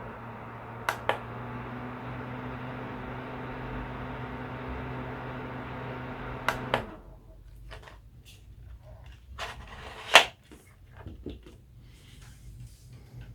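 Small USB rechargeable circulator fan running with a steady whoosh and faint hum. A double click of its button comes about a second in, and another double click just before it stops, about two-thirds through. Scattered knocks and clicks of the plastic fan being handled follow, one loud knock near the end.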